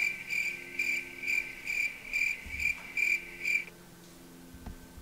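Cricket chirping, a steady run of chirps at about two a second that stops near the end: the comic "crickets" sound effect marking that nothing is happening, because the stove under the popcorn pan has not been turned on.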